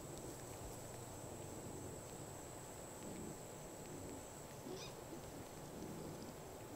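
Quiet outdoor background with faint, brief animal calls, one of them a little under five seconds in.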